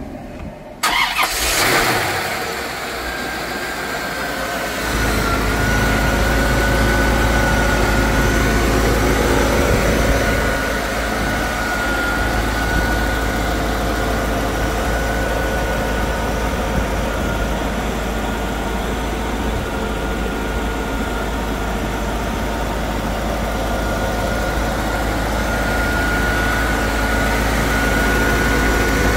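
A 1993 Corvette's V8 on a cold start: it catches about a second in, then settles into a steady idle. About five seconds in it grows louder with a deeper rumble, and a thin high whine runs through the idle.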